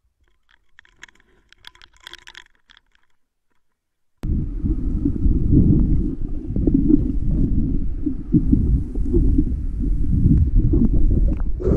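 Faint clicking, then about four seconds in a loud, low, churning water rumble starts abruptly, as picked up by an underwater camera.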